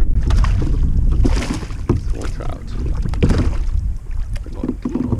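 Water sloshing around a kayak under a steady low wind rumble on the microphone, with scattered small knocks and clicks of handling.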